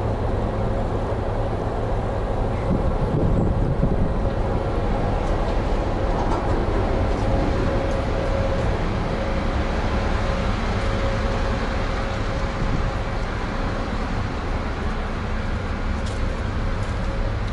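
Steady low drone of a ferry's engine under way, with a faint steady hum running through it.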